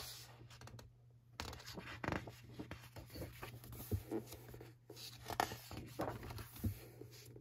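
Paper pages of a thick hardback book being turned and handled: soft rustling and rubbing with a few light ticks, starting about a second and a half in.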